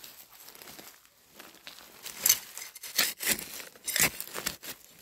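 Dry fallen leaves crunching and rustling in irregular bursts, quiet at first and loudest from about two seconds in.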